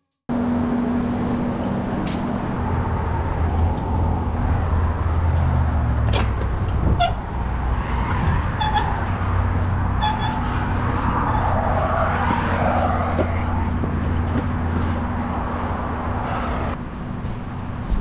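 Steady loud background rumble with a constant low hum, which starts suddenly just after the opening and runs on. A few short faint high tones and clicks come midway.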